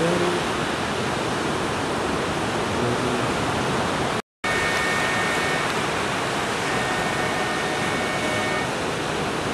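Steady rushing noise of breaking ocean surf, cutting out for a moment about four seconds in.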